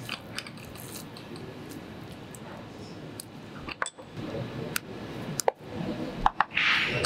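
Scattered light clicks and taps of serving ware being handled on a wooden board and counter over a steady kitchen background, with a short hiss near the end.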